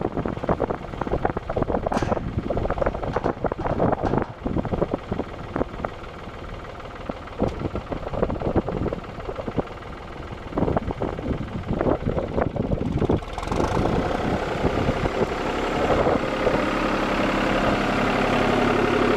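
Farm tractor engine running under a stream of irregular clanks and rattles, turning into a louder, steadier noise about two-thirds of the way through.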